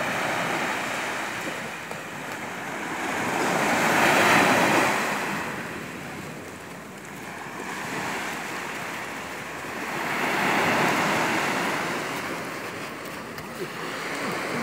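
Sea surf breaking and washing up on the shore, a steady rush of noise that swells into two louder surges, about four and about ten seconds in.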